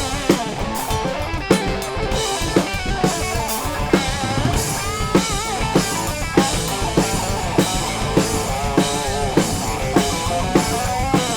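Rock band jamming: a drum kit keeps a steady beat of a little under two hits a second, under guitar lines and bass guitar.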